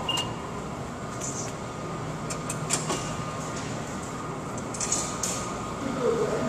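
Steady background noise of a rail station concourse, with several short, sharp clicks and knocks scattered through it.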